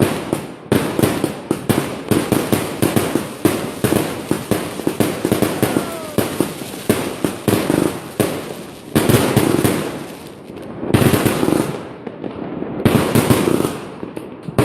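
A large box of consumer aerial fireworks (a cake) firing continuously: a fast, unbroken run of bangs and crackling bursts, with a few heavier clusters of booms in the second half.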